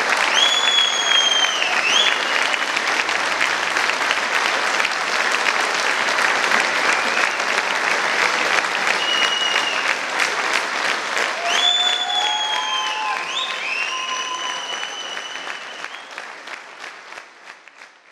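Audience clapping hard, with several high falling whistles cutting through the applause twice, early and again past the middle. The applause dies away near the end.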